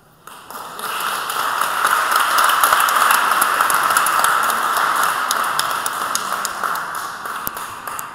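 Audience applauding: many hands clapping together, swelling over the first second or two and slowly tapering off toward the end.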